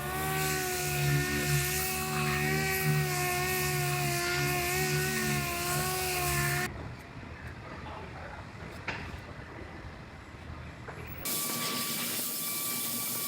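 A high-speed power tool whining steadily with a hiss for the first six or seven seconds. After a quieter stretch, a steadier, higher-pitched whine starts near the end.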